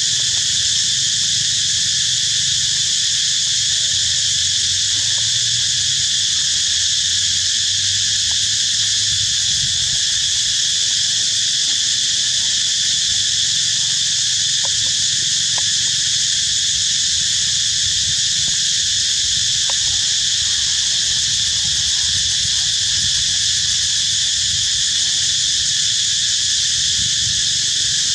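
A loud, steady insect chorus: a continuous high-pitched buzz that does not let up, with a few faint ticks.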